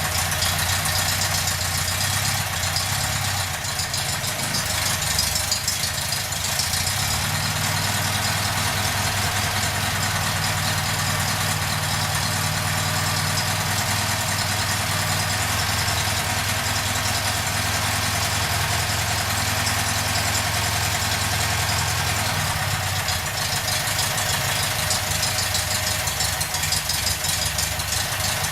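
Freshly rebuilt air-cooled VW Beetle flat-four engine running steadily on its first run, its speed changing slightly a couple of times.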